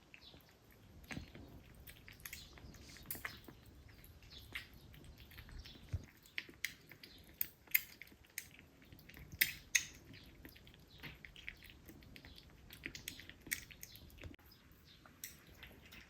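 Kittens moving about and playing, making small irregular clicks, taps and rustles, with a few sharper taps near the middle.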